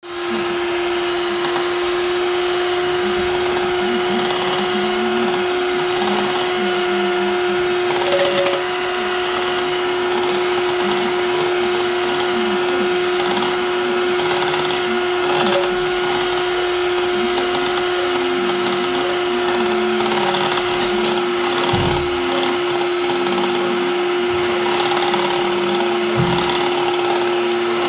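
Electric hand mixer running at a steady speed, a constant motor hum, its beaters churning cream in a steel bowl into butter.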